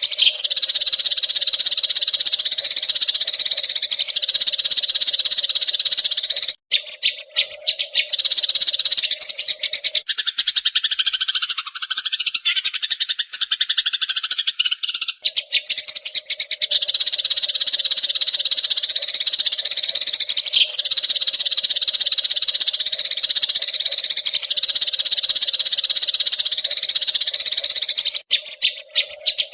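Eurasian tree sparrows chirping in a dense, unbroken chatter. For a few seconds in the middle the sound changes to a lower, different run of calls before the chatter resumes.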